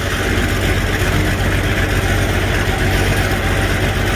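Tractor engine idling steadily, with an even low pulsing beat.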